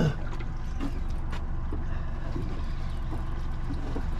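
Boat's outboard motor running steadily at trolling speed, a low even drone, with a sharp knock right at the start and a few faint clicks.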